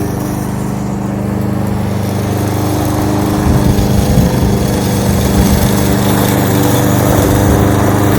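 Kohler XT-675 single-cylinder engine of a Yardworks push lawn mower running steadily. It gets louder and more uneven from about three and a half seconds in.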